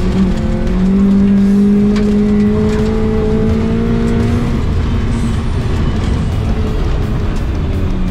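Mitsubishi Lancer rally car's four-cylinder engine heard from inside the cabin, held at high revs and climbing slowly in pitch, then dropping off about halfway through into a steadier, rougher rumble.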